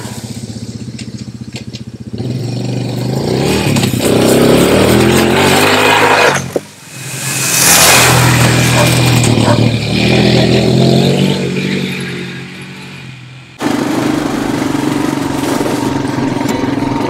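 Honda ATV engine revving as it approaches, passing close by about eight seconds in with its tyres churning through dry leaves, then its pitch dropping as it fades away. After an abrupt cut, an ATV engine running steadily at speed.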